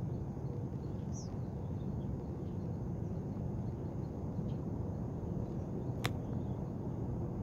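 Steady low outdoor rumble on open water, with a brief high falling chirp about a second in and a single sharp click about six seconds in.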